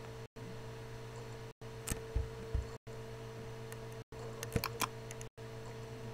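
Steady electrical hum with a few soft knocks about two seconds in and a short run of sharp clicks past the middle. The sound cuts out briefly about every second and a quarter.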